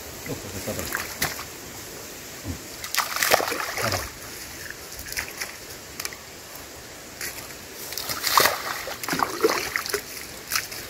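Several balls of groundbait tossed by hand into a pond, each landing with a splash at irregular intervals: pre-baiting the swim to draw fish in before fishing.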